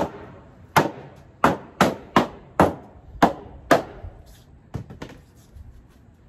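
Rubber mallet knocking together the parts of a plastic shelving unit: eight sharp blows over about four seconds, then a lighter one about a second later.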